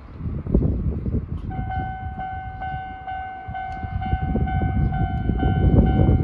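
Japanese level-crossing alarm of the old standard type starting up about one and a half seconds in: an electronic ding repeating about three times a second, its tone slightly uneven. Wind noise on the microphone runs underneath.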